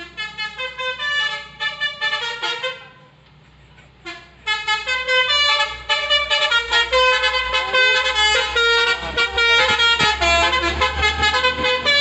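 Musical Basuri-style telolet horn on a Hino dump truck, playing a fast melody of short stepped notes. One run of notes, a pause of about a second and a half, then a longer unbroken run from about four seconds in. The truck's diesel engine rumbles louder as it comes near.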